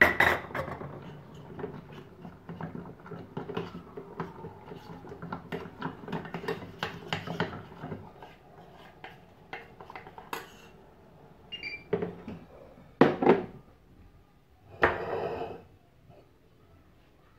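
A metal spoon clinks and scrapes against a small stainless saucepan as white chocolate is stirred while it melts in a bain-marie. Later come a few separate, louder clatters of dishes being handled on the counter.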